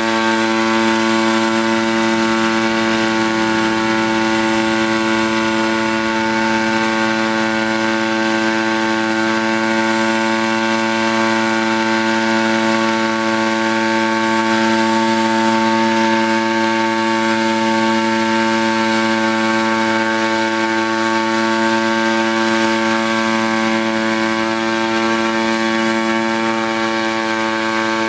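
Gas-engine hybrid pentacopter hovering: a steady engine and propeller hum with a constant pitch.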